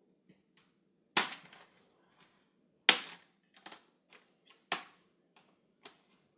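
Plastic screen bezel of a Dell XPS 17 laptop being pried off by hand, popping loose from the lid with sharp snaps: three loud cracks about a second and a half apart, with fainter clicks between them.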